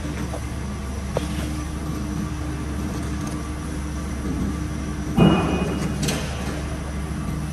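Steady low rumble and hum of workshop machinery. About five seconds in comes a short metallic scrape with a brief ring, then a click, as a steel bevel gauge is set against the cut edge of the steel plate.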